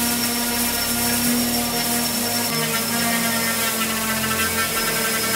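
Handheld electric detail sander running steadily with a constant high whine as it is worked over wooden rocking chair parts, sanding off the old clear coat and stain.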